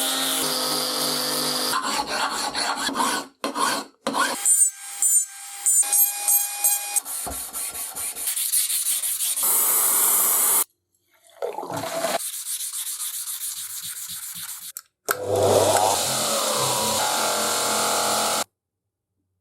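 Workshop sounds of a metal antique iron being cleaned and worked, in a quick series of cut-together clips: rubbing, scraping and filing, with a steady tool motor hum in places. The sound stops abruptly near the end.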